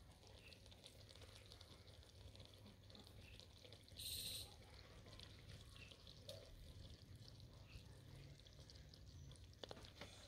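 Near silence: faint background with a few light clicks and one brief hiss about four seconds in.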